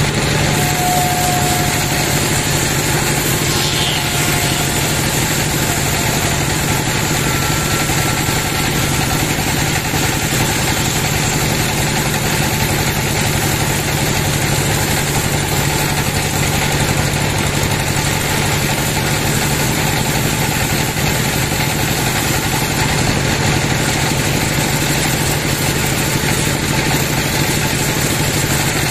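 Large band sawmill running, its vertical blade ripping lengthwise through a big log, with a steady mechanical drone.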